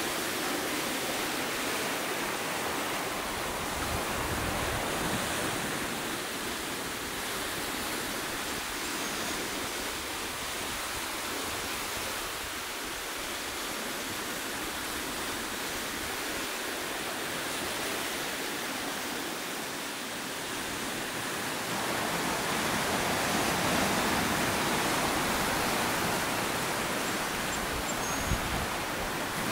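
Ocean surf breaking and washing over a rocky shoreline: a steady rushing of waves that swells louder about three-quarters of the way through, with one short click near the end.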